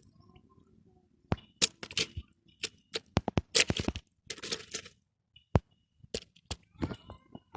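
A quick, irregular series of sharp cracks and clicks, mixed with a few short rushing bursts about three and a half to five seconds in.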